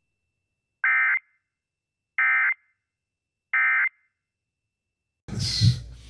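Emergency Alert System SAME data tones: three short, identical, buzzy digital bursts about 1.4 seconds apart, the End-of-Message code that closes the required monthly test. The TV programme's audio cuts back in abruptly near the end.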